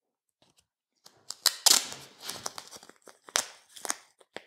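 Playing cards being taped by hand onto a ring: a quick, uneven run of short rasps of sticky tape, clicks and card rustles, starting about a second in.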